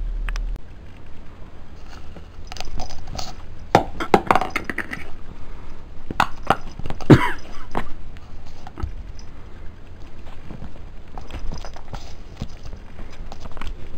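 Irregular rustles, knocks and light clinks of close handling, loudest about four to seven seconds in, after a low steady hum cuts off about half a second in.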